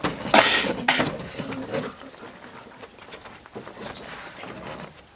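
Metal-legged plastic school chairs being set down and shifted on a wooden stage floor: a couple of loud scrapes and knocks in the first two seconds, then quieter.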